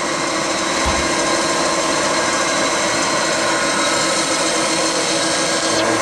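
Boring/milling machine running steadily, its large round cutter head spinning as a Ford Model A cylinder head feeds toward it for a resurfacing pass, with a steady hum. A brief low thump about a second in.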